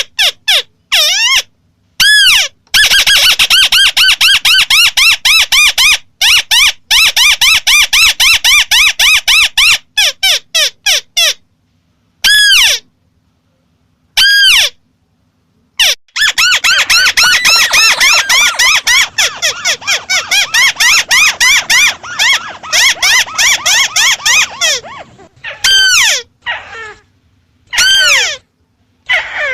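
White-browed crake calling: fast runs of many repeated, arched notes, broken by short pauses. The longest runs come about three to eleven seconds in and about sixteen to twenty-five seconds in.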